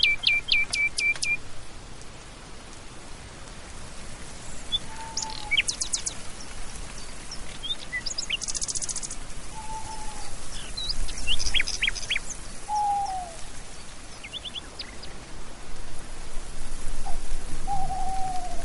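Wild birds calling over a steady background hiss. A quick run of high chirps opens it, scattered chirps and trills follow, and a lower, short falling whistle comes again every few seconds.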